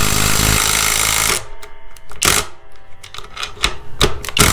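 Skil ID573901 20 V impact driver hammering a 3-inch lag screw into a wooden beam: a dense, rapid rattle of impacts for about a second and a half, then scattered separate knocks, then another short hammering burst near the end.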